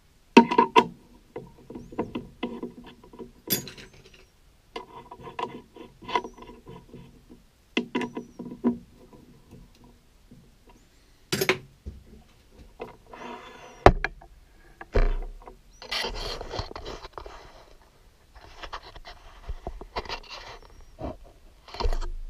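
Hand work at a stopped metal lathe: a run of metallic clinks, each ringing briefly, in the first half, then a couple of low thuds and stretches of scraping and rustling.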